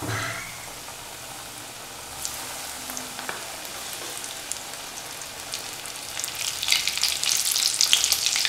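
Breaded chicken cheese fingers deep-frying in hot vegetable oil in a steel kadai: a steady sizzle with fine crackles. The sizzle grows louder and busier from about six seconds in as more pieces go into the oil.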